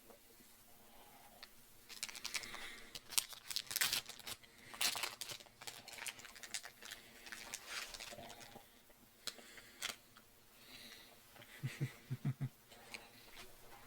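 Chocolate bar wrapper being handled: about two seconds in, a few seconds of faint, dense crinkling and crackling, followed by scattered clicks.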